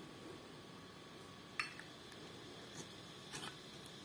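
Faint handling of a brass Zippo lighter: a few light metallic clicks and taps, the clearest about a second and a half in and two fainter ones near the end.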